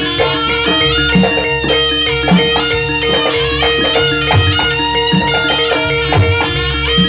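Javanese jaranan ensemble music: a reedy wind-instrument melody, typical of the slompret, played over a held drone and repeated low drum strokes from the kendang.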